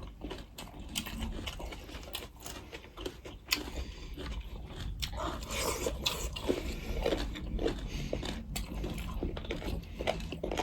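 A person eating close to the microphone: chewing and wet mouth sounds, with many short sharp clicks, busiest from about five to nine seconds in.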